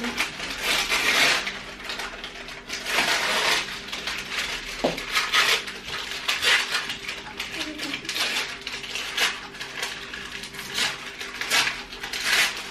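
Parchment paper crinkling and being torn by hand over a metal baking tray, with irregular clinks and scrapes of the tray being handled.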